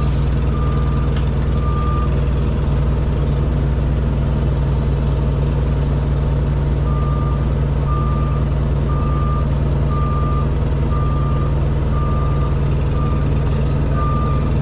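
An engine running steadily with a low, even drone, while a vehicle's backup alarm beeps about once a second, stopping for several seconds near the start and resuming about halfway through.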